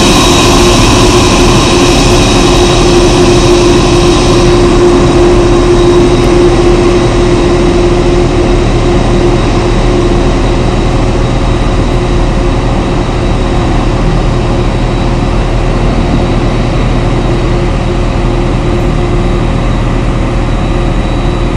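Four General Electric CF6-80C2 turbofans of a Boeing 747-400 freighter running at taxi power: a steady whine over a deep rumble. The sound grows slowly fainter as the aircraft taxis away, and it loses its high hiss after about four seconds.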